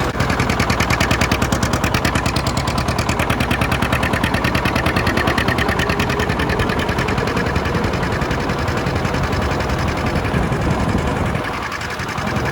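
1959 John Deere 730 Diesel's two-cylinder diesel engine running with a fast, even popping exhaust beat.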